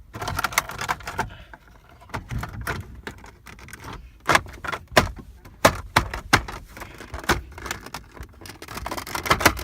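Hard plastic center-console bezel being worked and pushed into place, giving irregular clicks, knocks and rattles, with a few louder snaps in the second half.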